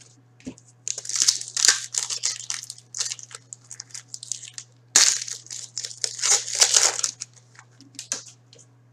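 Foil wrapper of a hockey trading-card pack being torn open and crinkled by hand, in two spells of crackling: one starting about a second in, the other about five seconds in.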